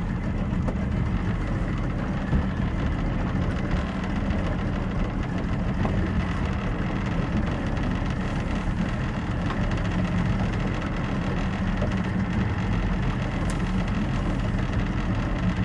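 Small motorboat's engine running steadily at low speed, a constant low hum with a steady hiss above it.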